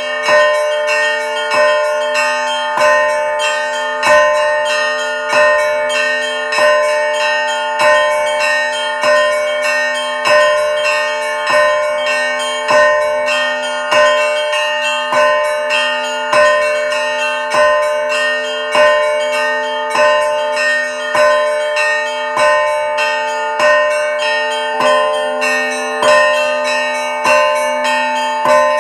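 Orthodox church bells ringing in a steady repeating rhythm: several bells of different pitches struck in turn, with a loud accent about every second and a bit and lighter strikes between. The tones of the lower bells hang on under the strikes.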